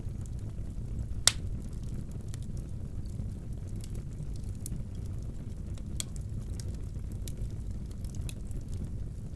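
Fire burning in a fireplace: a steady low rumble with scattered small crackles, and a sharp, louder pop about a second in and another a little past the middle.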